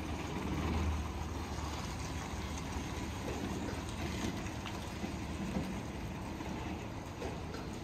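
Steady low rumble of heavy vehicles on the move, with faint light rattles.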